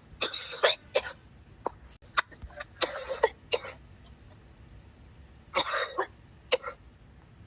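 A person coughing hard in three fits a couple of seconds apart, each a harsh cough followed by a shorter one.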